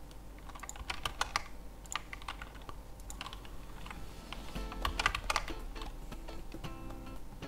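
Computer keyboard keys and mouse buttons clicking at an irregular pace, several in quick succession about a second in and again around halfway through.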